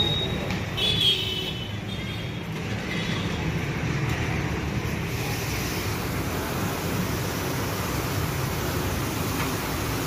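Steady low rumble of background noise, with a brief high-pitched squeal about a second in.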